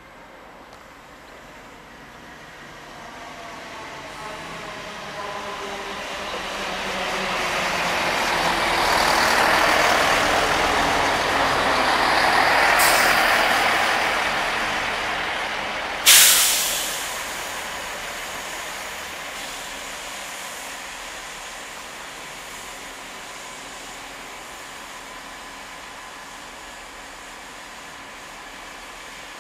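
Chiltern Railways diesel multiple unit passing at speed. The engine and wheel noise builds for about ten seconds and then fades, with engine tones falling in pitch as it goes by. A single loud, sharp crack cuts in just after the peak, followed by a steady lower rumble.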